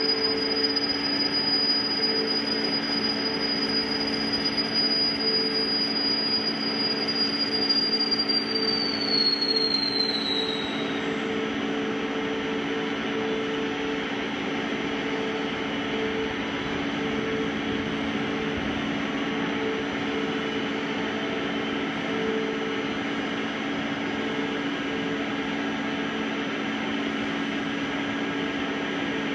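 Mori Seiki MV-40 CNC vertical milling machine running: a high spindle whine holds steady, then falls in pitch and dies away about ten seconds in as the spindle winds down. A steady hum from the machine continues throughout.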